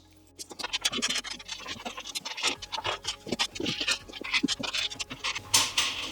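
Steel washers and nuts being fitted by hand onto the mounting bolts of an air compressor pump's feet: irregular small metal clicks and scrapes as they are dropped on and spun down the threads.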